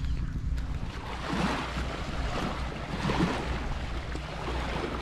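Wind buffeting the microphone with surf washing ashore. The waves swell twice, about a second and a half in and again about three seconds in.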